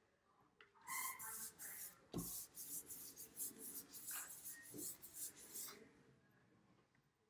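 Paintbrush scrubbing paint onto paper pinned to a wall: a run of quick, scratchy strokes from about a second in until nearly six seconds, with a dull knock about two seconds in.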